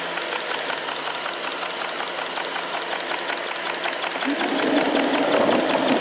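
Car driving on a snow-covered road, heard from inside the cabin: steady engine and road noise with a fast, even ticking running through it.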